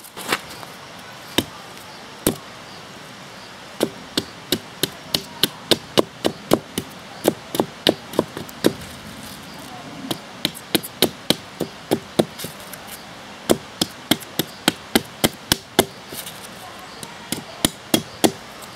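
Ultranatura fiberglass-handled hand hatchet chopping into a stick braced upright on a wooden stump: sharp wooden knocks, a few spaced strikes at first, then quick runs of about two to three a second broken by short pauses.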